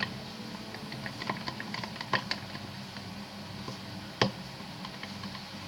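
Bamboo chopsticks stirring PVA glue and water in a cup: scattered light clicks and taps of the chopsticks against the cup, with one louder knock about four seconds in.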